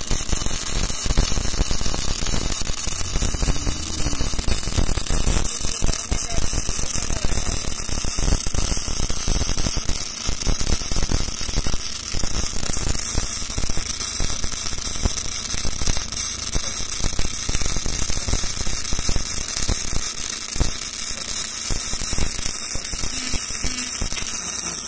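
MIG (gas metal arc) welding arc on steel, a steady, dense crackle as the wire feeds into the weld pool.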